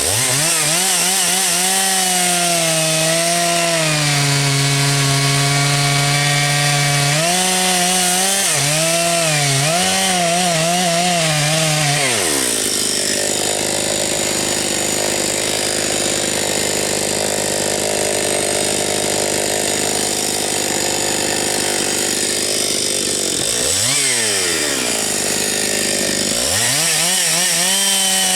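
Husqvarna 272XP two-stroke chainsaw cutting through logs at high revs, its pitch wavering and sagging as the chain bites. About twelve seconds in the revs fall away and the saw drops back. Near the end the throttle goes open again and the engine climbs back up into another cut.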